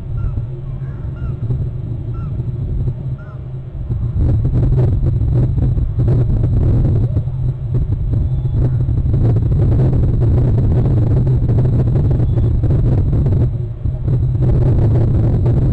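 Wind buffeting an outdoor nest-cam microphone: a loud low rumble with crackling gusts that grows stronger about four seconds in. A few faint short bird chirps sound in the first three seconds.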